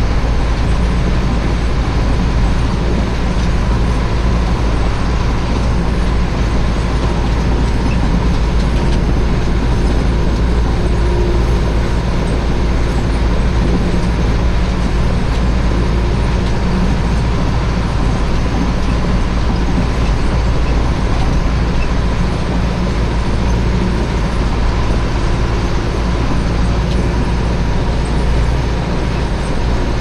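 Tractor engine running steadily under load as it drives a front-mounted snow plough blade through deep snow, with a faint steady whine above the engine.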